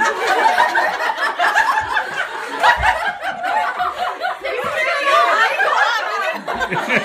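A group of women laughing together, several at once, with excited chatter mixed in.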